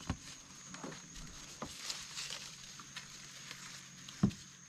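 Occasional knocks and bumps from a plastic fishing kayak being eased in among overhanging branches: two soft knocks early and one louder dull thump about four seconds in, over a faint steady high whine.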